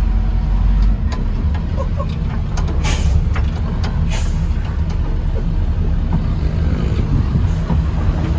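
Military MTV 6x6 army truck's diesel engine running with a steady deep rumble, heard from inside the cab. There are two short hisses about three and four seconds in.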